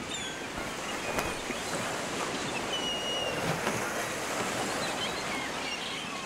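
Steady rush of ocean surf, with a few faint, short high chirps over it.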